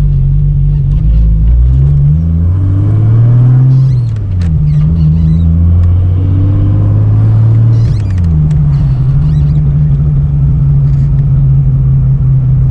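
Holden VL Turbo Commodore's turbocharged 3.0-litre straight-six (RB30ET) running while driving: the engine note climbs from about a second and a half in, falls back just after four seconds, steps down again near eight seconds, and then runs steadily.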